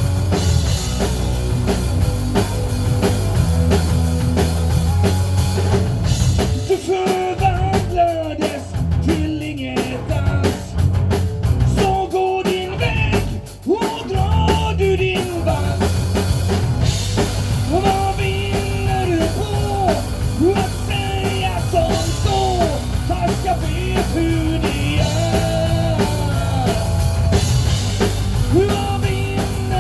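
Rock band playing with a drum kit and bass under a melodic line. About a quarter of the way in, the drums and bass drop back for several seconds, then the full band comes back in.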